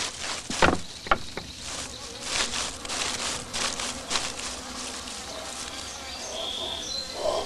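Wooden outhouse door knocking shut, with a few sharp knocks in the first second and a half, followed by a scratchy rustling and a few short high chirps near the end.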